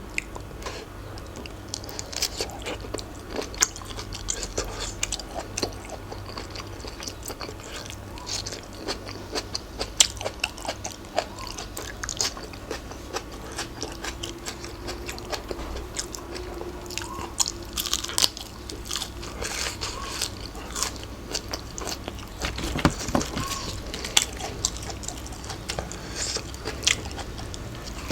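A person biting and chewing crunchy food, with many short crisp crunches throughout.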